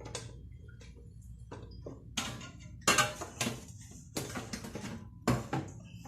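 Kitchenware being handled, giving a string of sharp clinks and knocks, the loudest about three seconds in and another near the end.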